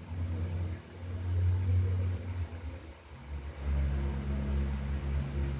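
A vehicle engine running with a low rumble; it dips about three seconds in, then comes back as a steady low hum.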